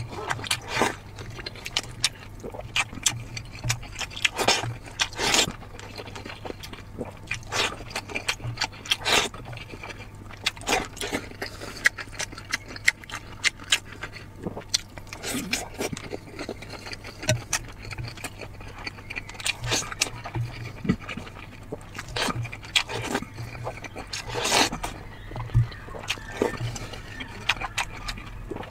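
Close-up eating sounds: a man slurping boiled dumplings and broth and biting and chewing braised pork belly, wet sucking and smacking noises that come in quick, irregular bursts over a low steady hum.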